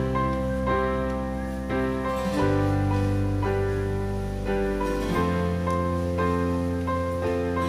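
Background music: piano or keyboard chords over sustained bass notes that change about every two and a half seconds.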